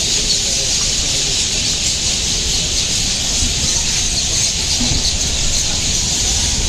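A large flock of birds chirping together in a dense, unbroken chorus of many overlapping high chirps.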